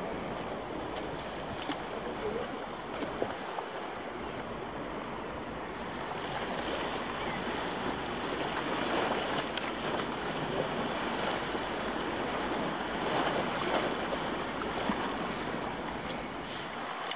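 Calm sea water lapping and sloshing close to the microphone, with a little wind noise.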